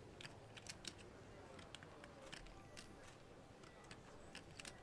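Faint, irregular light clicks of poker chips being handled at the table, several a second, over near silence.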